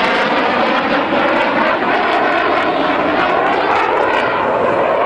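A fighter jet flying low and fast: its engine noise is a loud, steady rush, with a tone that slowly sweeps up and down.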